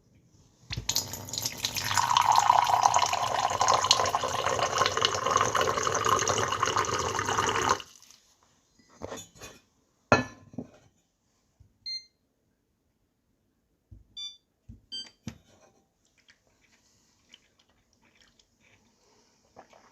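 Water pouring into a teapot in a steady stream for about seven seconds, then cut off abruptly. A few light clicks and small clinks follow.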